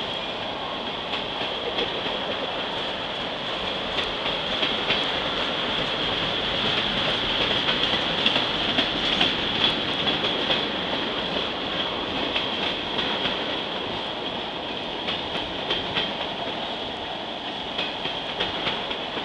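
Freight train of tank cars rolling past: a steady rumble of wheels on rail, with frequent clicks as the wheels cross rail joints and a steady high-pitched ring throughout.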